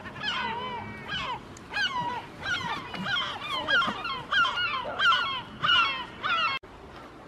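Rapid series of short, honking animal calls, about two a second, that cut off abruptly near the end.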